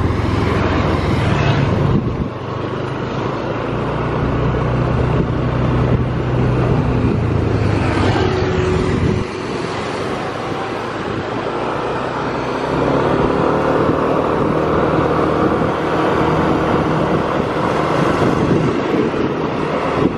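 Yamaha NMAX scooter running along a village road, heard from on board, with engine and road noise. The engine note changes with speed: it drops about nine seconds in and picks up again from about thirteen seconds. An oncoming car passes close at the start.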